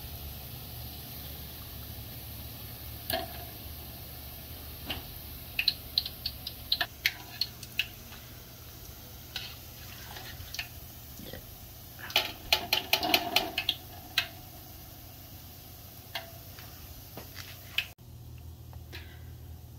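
Rosette cookie batter frying in hot oil: scattered crackles and pops, with a quick run of rapid popping about twelve seconds in, over a low steady hum.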